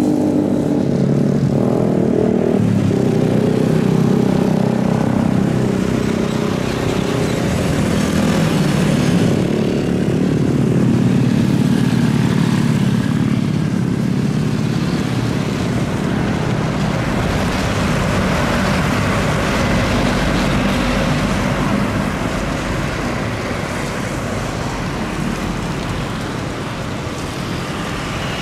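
Boeing 777 freighter landing on a wet runway. Its jet engines hum on the approach. After touchdown the rollout is a broad rushing noise, with tyre spray off the wet runway, that swells for a few seconds and then eases off.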